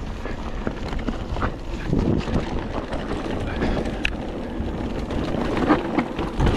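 Mountain bike riding fast down a dirt trail: a steady rumble of tyres over rough ground with scattered clattering knocks from the bike, and wind buffeting the microphone.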